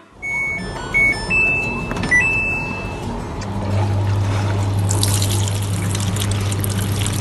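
Top-loading washing machine filling, water pouring into the drum through the detergent dispenser. A steady low hum starts about three and a half seconds in, and the pouring hiss grows louder about a second later. Near the start there are a few short electronic beeps at different pitches.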